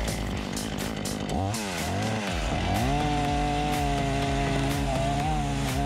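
Two-stroke petrol chainsaw running. Its engine pitch dips and rises about one and a half seconds in, then climbs and holds at a steady high speed from about halfway as its blunt, damaged chain is put to a hardwood beam.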